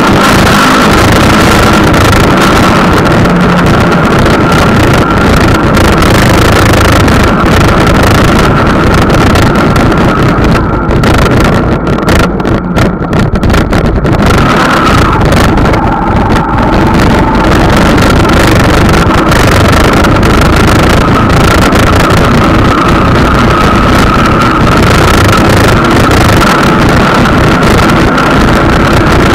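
Wind buffeting the microphone of a camera on a moving vehicle, mixed with road and drive noise and a faint steady whine; the rush eases briefly about halfway through.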